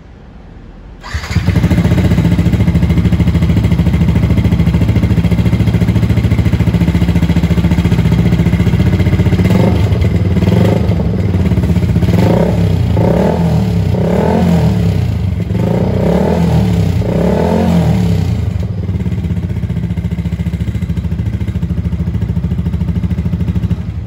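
Yamaha XSR 155's single-cylinder engine breathing through an aftermarket MIVV exhaust with the plainest dB killer fitted, idling loudly and then revved in a run of about eight quick throttle blips between about ten and eighteen seconds in before settling back to idle. The engine sound comes in suddenly about a second in.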